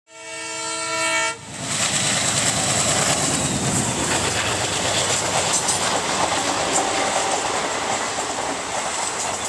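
A train locomotive's horn sounds one steady blast for just over a second and cuts off sharply. Then a passenger train passes close by at speed: a loud, steady rush and rumble of the coaches going by, with the clicking of wheels over the rails.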